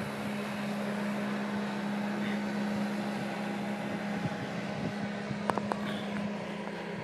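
A motorboat engine running as a boat goes by: a steady drone that stops about six seconds in, with a few short clicks shortly before.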